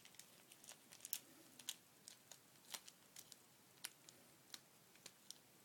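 Faint, irregular clicks and light crinkles of hands handling a small taped plastic bag of fingerboard trucks.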